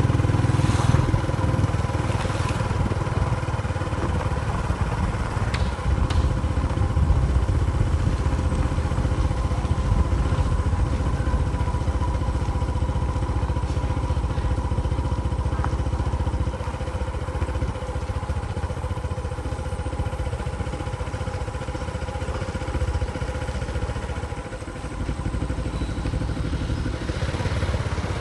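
An engine running steadily, a continuous low rumble with a steady hum on top.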